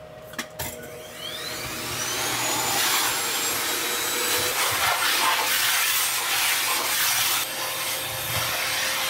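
Hose vacuum cleaner starting up about a second in, its whine rising as the motor spins up, then running steadily.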